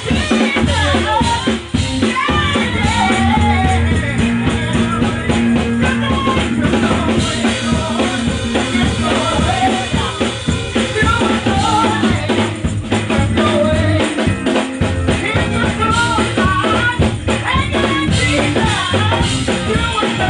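A live band of bass guitar, keyboard, organ and drum kit playing an old-school medley while a woman sings lead into a microphone; a steady drum beat and bass line run under the wavering vocal melody.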